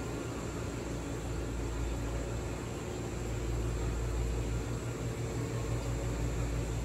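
Steady low mechanical hum with a hiss over it, the running noise of indoor aquarium equipment such as pumps, filters and ventilation, with a faint high steady whine.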